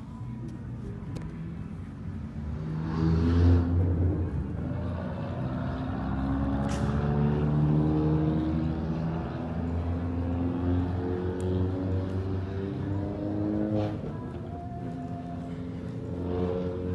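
Car engine running as the car drives along the road, its note climbing over the first half and falling away in the second, over steady tyre and road noise. The loudest swell comes about three seconds in.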